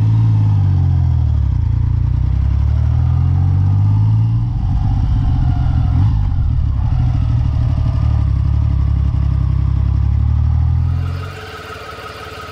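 BSA Rocket 3's 740 cc overhead-valve three-cylinder engine running as the motorcycle is ridden, its pitch rising and falling with the throttle. Near the end it cuts to a quieter, steady engine idle.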